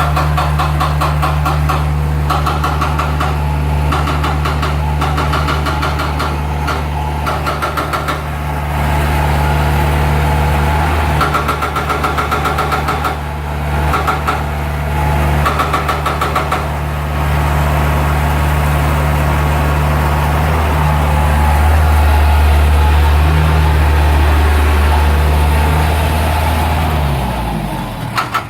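A large engine running steadily at a constant speed, with bursts of high beeping coming and going over it during the first half. Near the end the engine's pitch drops and it winds down.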